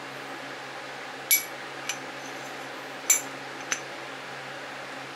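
Steel transmission gears of a Toro Powershift 824 snow thrower clinking against the steel shaft and each other as they are handled for reassembly: two pairs of short metallic clinks, each with a brief ring, a louder clink followed by a softer one. A low steady hum runs under them.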